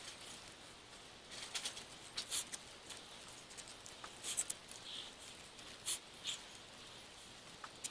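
Faint, irregular rustles and soft crackles as self-amalgamating rubber tape is stretched and wound around an antenna's PL259 coax plug to waterproof it.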